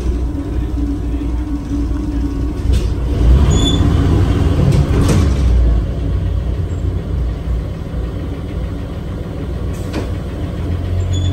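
A 1949 Crown Supercoach school bus's International Red Diamond 501 inline-six engine running, heard from inside the bus. It revs up about three seconds in and settles back after a couple of seconds as the bus is put in gear to move. A few sharp clicks come around the rev and again near the end.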